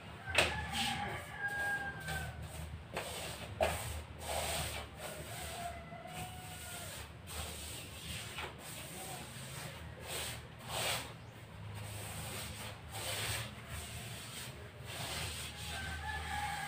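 Paintbrush swishing against a wall in short, irregular strokes as paint is brushed into the edges, over a low steady hum.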